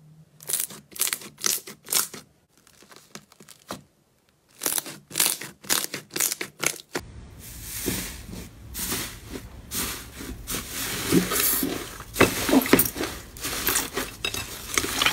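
Slime worked by hand: glossy orange glitter slime gives clusters of sharp crackling clicks, then about seven seconds in an air-puffed blue foam slime is pressed and torn with steady crunchy crackling as its air bubbles pop.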